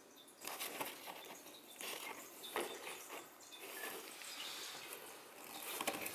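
Faint rustling and scraping of a cardboard box as a cat rubs against its edge and pushes a paw out from under it, with a few sharper scrapes about half a second, two and two and a half seconds in.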